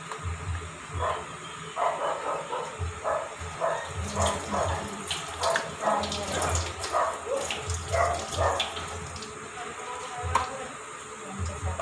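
Kitchen tap running into a stainless steel sink as rubber-gloved hands wash under the stream, with splashing and short knocks against the sink.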